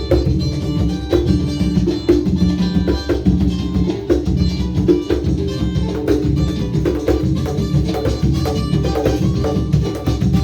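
Instrumental passage of a Brazilian song: drums and hand percussion keeping a steady rhythm over plucked guitar and bass lines.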